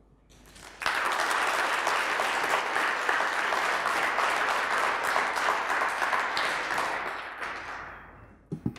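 Audience applauding. It breaks out about a second in, holds steady, then dies away over the last two seconds.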